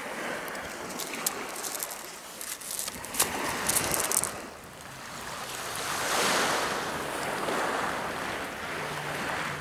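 Small waves washing onto a pebble beach, one swelling and easing off about six seconds in. In the first few seconds, sharp clicks of pebbles knocking together as a wet hessian sack is moved about on the stones.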